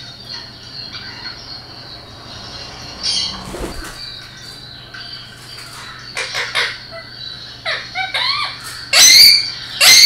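Ring-necked parakeet calling: a few short chirping calls in the second half, then two loud, harsh squawks near the end.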